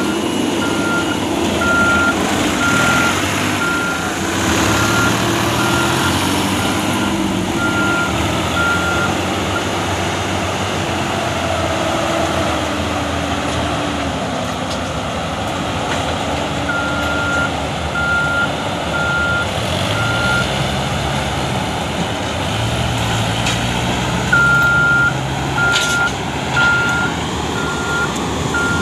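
Diesel engines of a Case IH Austoft 4000 sugarcane harvester and a tractor running steadily under load, their pitch shifting a little. Over them a reversing alarm sounds a repeating high beep, which stops about a third of the way in, comes back for a few seconds after the middle, and starts again near the end.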